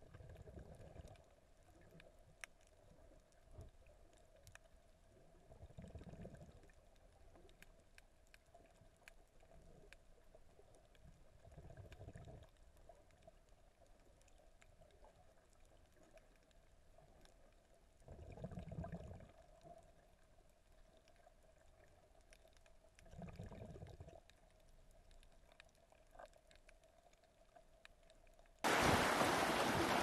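Muffled underwater sound from a camera held below the surface: a faint steady hum with low surges of water noise every five or six seconds. About a second before the end it switches abruptly to a loud rushing noise of wind and sea above water.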